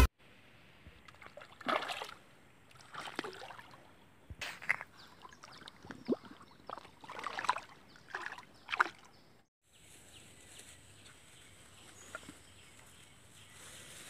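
Shallow river water sloshing and splashing in short bursts every second or so, stirred by otters swimming. The splashing stops about two-thirds in, leaving only a faint hiss.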